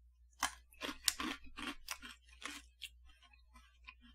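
Mouth chewing a crisp Glico Pretz baked pretzel stick: a quick run of dry crunches for about three seconds, then sparser, fainter ones.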